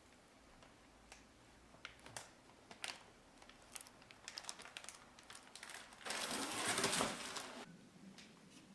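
Scattered small clicks and taps of hands and tools handling parts, then a louder rustling scrape for about a second and a half near the end.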